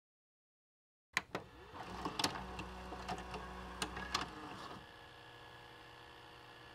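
Videocassette recorder mechanism: a sharp click about a second in, then the tape-loading motor whirring with clunks and clicks as it threads the tape into play, settling into a faint steady hum near the end.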